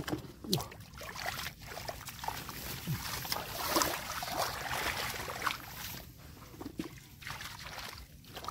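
Hands sloshing and splashing through shallow water and wet straw: irregular small splashes, trickles and rustling crackles.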